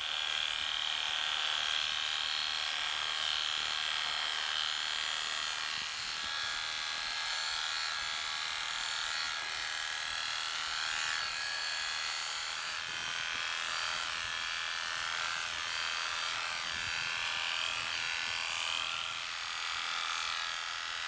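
Corded electric dog clipper with a 7 mm guard comb buzzing steadily as it shaves a small dog's coat short, its pitch wavering now and then from about ten seconds in.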